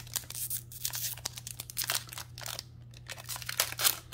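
A foil trading-card booster pack crinkling and tearing as it is worked open by hand, in a run of irregular sharp crackles; the pack is stubborn to open.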